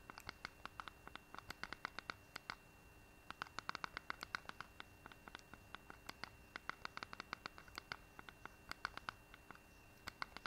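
Faint quick runs of soft clicks, several a second, broken by short pauses: button presses stepping the selection across an on-screen number pad to enter a code. A faint steady high whine sits underneath.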